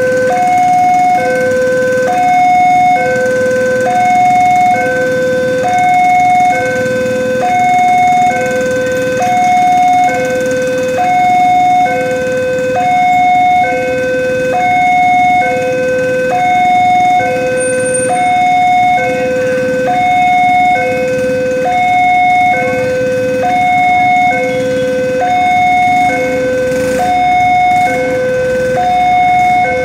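Electronic two-tone warning alarm, alternating steadily between a low and a high tone without pause, typical of a railway level-crossing signal sounding as a train approaches.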